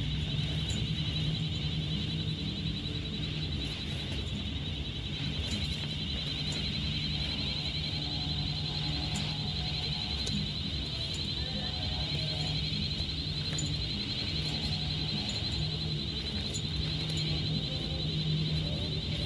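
A continuous high-pitched alarm with a rapid warble, sounding without a break, over a low steady motor hum.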